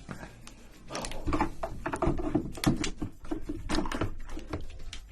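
Close-miked eating of red king crab: dense, irregular crackling and cracking of shell with wet smacking, starting about a second in.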